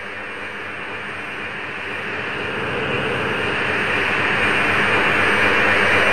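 A dense rushing noise from a composed electronic film soundtrack, swelling steadily louder from about a second and a half in.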